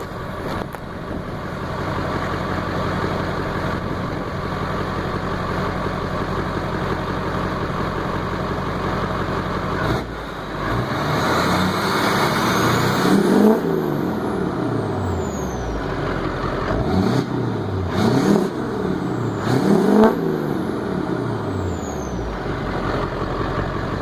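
LLY Duramax 6.6-litre V8 turbo-diesel idling through a 5-inch straight-pipe exhaust with the resonator deleted. About ten seconds in, it is revved several times, each rev rising and dropping back to idle, with a high whistle falling away after the revs.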